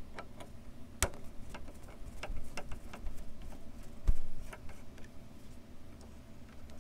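Hand screwdriver turning out Torx screws on a truck's hood latch: a run of irregular light clicks and ticks from the driver and the plastic around it, with a dull bump about four seconds in.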